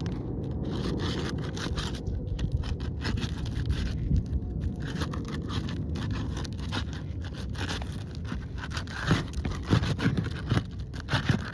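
Asphalt shingles being unsealed with a roof snake: irregular scraping and crackling as the tool is worked under the shingle tabs and the adhesive seal strips let go, busier toward the end, over a steady low rumble.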